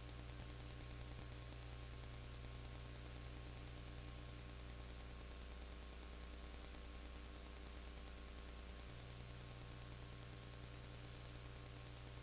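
Steady electrical mains hum with hiss and static, and no game sound: the recording's own noise floor. The lowest hum thins out about halfway through and comes back near the end.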